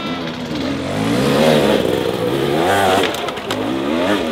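Enduro dirt bike engine revving up and falling back over and over as the rider works the throttle under load on a steep rocky climb.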